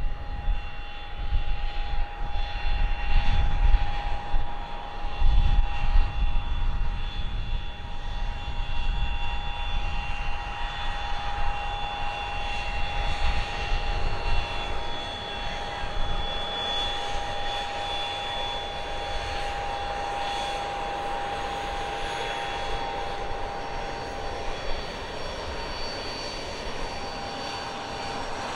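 Aircraft engines running with a steady whine, under a deep rumble that is strongest in the first several seconds and then eases off.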